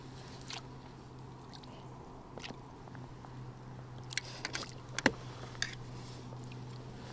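Water splashing as a small bream is drawn into a landing net at the water's surface: scattered light splashes, then a quick run of sharp splashes between about four and six seconds in, the loudest just after five seconds.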